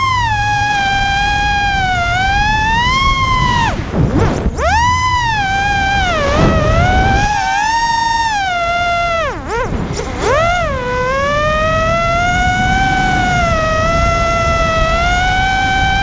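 Vortex 250 Pro racing quadcopter's four brushless motors and propellers whining, the pitch rising and falling with the throttle, with wind rumble underneath. The whine drops away sharply twice, about four seconds in and again near ten seconds, as the throttle is chopped, then climbs back.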